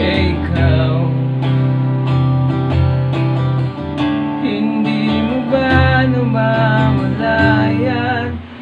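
Backing music for a song: strummed guitar chords with a wavering melody line above them, cutting off near the end.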